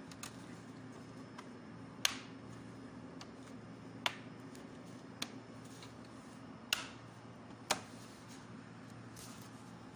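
Plastic snap-clips of a laptop's bottom cover clicking into place as the panel is pressed down onto the chassis: about five sharp, separate clicks a second or so apart.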